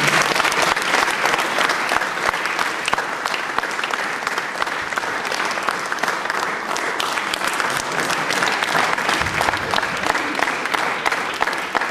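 Audience applauding steadily: many hands clapping at once, without a break.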